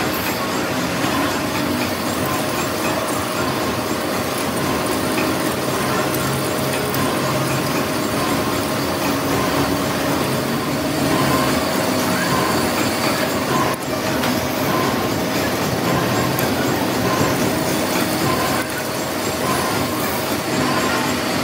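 Metal lathe running with a steel compressor crankshaft spinning between its chuck and tailstock: a steady mechanical noise with a faint steady tone.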